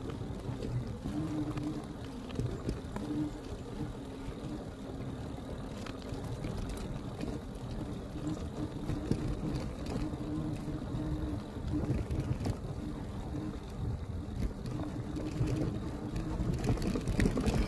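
Electric bike ridden over rough off-road ground: a faint steady motor whine over the rumble of tyres and frame, with scattered small knocks and rattles.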